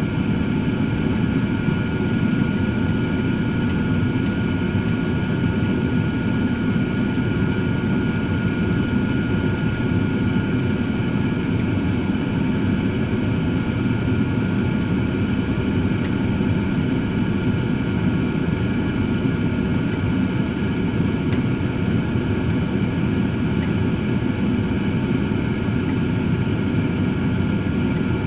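Cosori 13-quart air fryer oven running: its fan blowing steadily, with a thin high whine held at one pitch.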